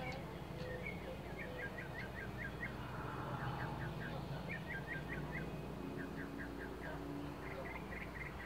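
A small songbird singing outdoors: several runs of quick, high chirps, about five a second, each run lasting about a second, over a steady low background rumble.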